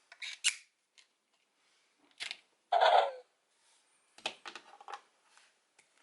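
Plastic clicks from Dino Fury toy keys being handled and inserted, with a short electronic toy tone that falls in pitch about three seconds in.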